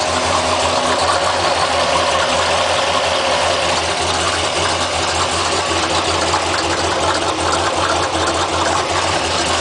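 Engine idling steadily with a grinding hum that the owner suspects comes from the bottom end, thinking it could be the oil pump or a bottom-end bearing wearing out.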